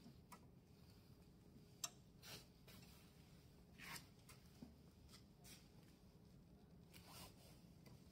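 Near silence with a few faint, scattered clicks and taps from small hand tools and fingers working on a Raytools BM110 laser cutting head.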